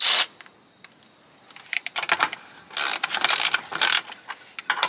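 Cordless ratchet running bolts in with short bursts of its motor: one at the start, then several more after about a second and a half, with clicks and small rattles between them.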